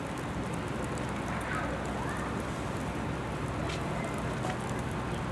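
Graupel (small ice pellets) falling and pattering on surfaces: a steady hiss dotted with many tiny sharp ticks.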